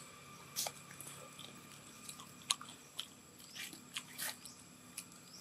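A baby long-tailed macaque chewing and biting food, heard as a scatter of short, sharp crunches a few times a second or less.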